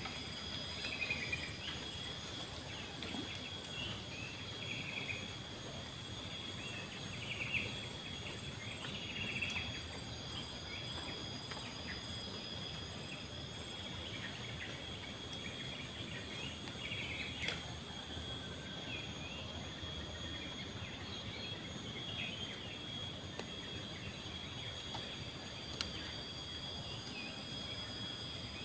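Insects trilling steadily at several high pitches, with short bird chirps scattered throughout.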